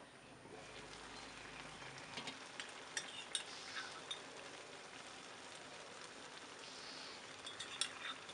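Shrimp curry sizzling in a wok: a steady frying hiss, with a few sharp clicks and taps about three seconds in and again near the end.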